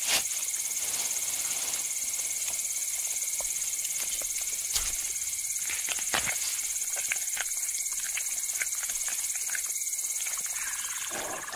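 Steady high-pitched drone of an insect chorus in the bush, with a few sharp clicks and snaps scattered through it.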